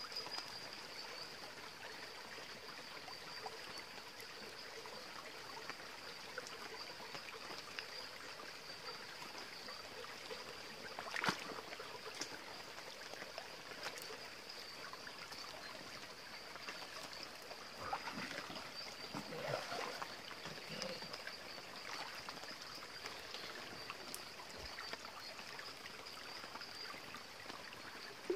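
Shallow creek water trickling and running steadily over rocks. A sharp knock comes about eleven seconds in, and a short burst of louder sounds around twenty seconds.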